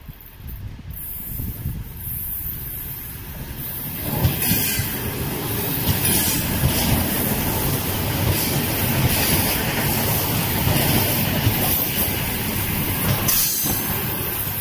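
ED4M electric multiple unit approaching and passing close by: wheel and rail noise grows over the first few seconds, then stays loud and steady as the cars go past.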